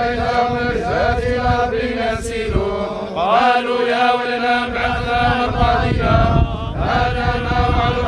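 Many men's voices reciting the Quran together in a slow, drawn-out unison chant, the collective recitation at a Muslim burial.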